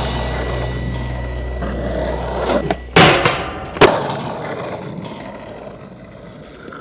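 Skateboard wheels rolling on concrete with a steady rumble as the board carves a bowl. Two sharp loud knocks from the board come about three and four seconds in, and the rolling fades as the board moves away.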